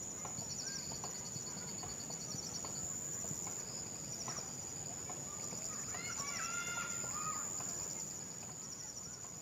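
Nature ambience of insects and birds: a steady high-pitched insect drone with repeated pulsed insect trills, and a short run of bird calls about six seconds in.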